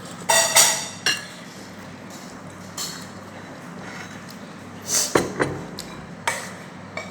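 Cutlery and dishes clinking at a meal: a few sharp clinks with brief ringing, in one cluster near the start and another about five seconds in.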